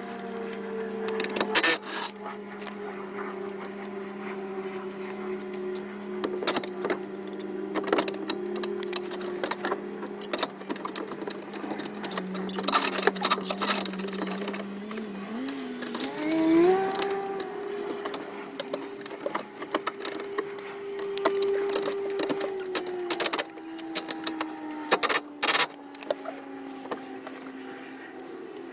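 Scattered clicks and metal knocks of a bolt and a black metal mounting plate being handled and fitted against a car's underbody, over a steady hum that rises in pitch about halfway through and then slowly falls.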